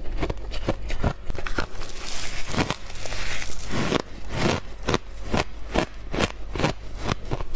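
Refrozen shaved ice crunching as it is bitten and chewed: a run of sharp crunches, a few a second, with a denser stretch of crackling about two seconds in.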